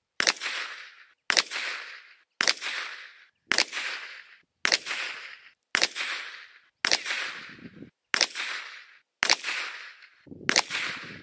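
Ruger PC Charger 9mm pistol firing ten shots at a steady pace of about one a second, each shot trailing off in a fading echo.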